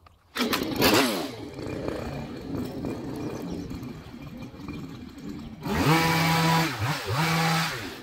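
Small two-stroke engine of a petrol hedge trimmer: it fires up abruptly about a third of a second in, its pitch sliding down as it settles to a lower running speed. Near the end it is revved hard twice in quick succession.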